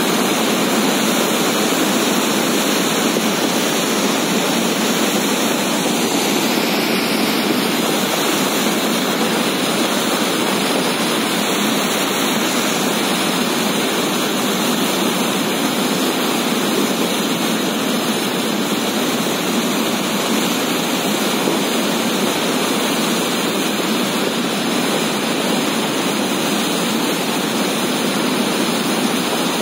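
Mountain stream in flood rushing down a rocky gully: a steady, loud noise of white water that does not let up.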